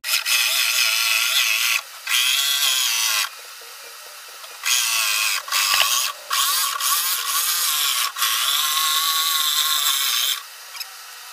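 Corded jigsaw running and cutting through plywood, its pitch wavering under load. It runs in several long stretches with short pauses, including a longer stop a few seconds in, and cuts off near the end.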